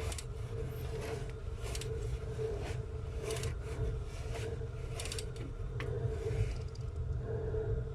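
Scattered metallic clicks and scrapes of a wrench on the crankshaft pulley bolt as the engine is turned over by hand to line up the timing marks, over a steady low background hum.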